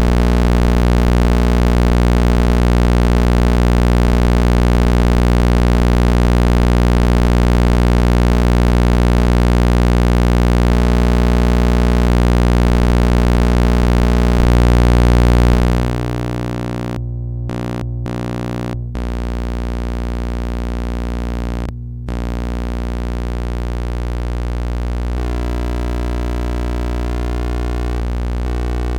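Old thyratron tube working as a sawtooth oscillator, giving a steady buzzing drone rich in overtones. About halfway through it gets quieter and changes tone, its upper part cuts out briefly a few times, and near the end the overtones glide upward. The erratic behaviour is typical of a tube the owner calls probably very worn out.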